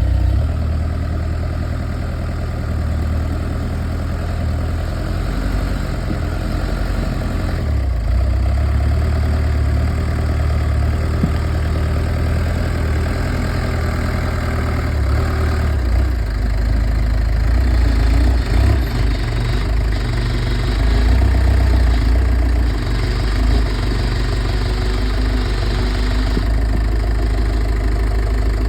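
Old Pettibone telehandler's engine idling steadily, run to check the newly crimped transmission-cooler coolant hose for leaks.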